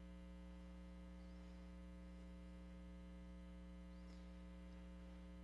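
Near silence apart from a steady electrical mains hum.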